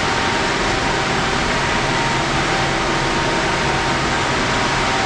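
Steady machinery noise from a running Kiwa V21i-R CNC vertical machining center and its auxiliary units, such as the spindle chiller and hydraulic pump: an even, fan-like rush with a faint steady whine.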